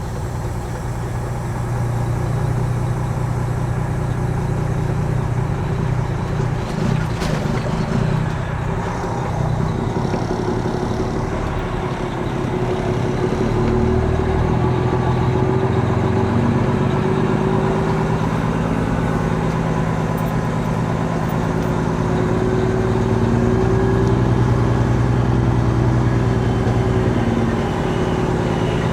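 Peterbilt 389 glider semi truck's diesel engine running under way, its note rising and falling a few times as the truck drives. A single sharp click about a quarter of the way in.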